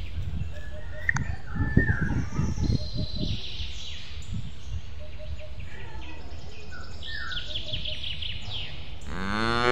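Birds chirping over a steady low background hum, with a few soft knocks about two seconds in. Near the end a cow moos once, rising in pitch.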